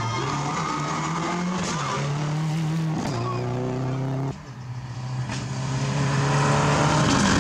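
Subaru rally car's flat-four engine running hard, its pitch stepping with gear changes about two and three seconds in. The sound cuts off abruptly past the middle, then a rally car's engine grows steadily louder as it approaches.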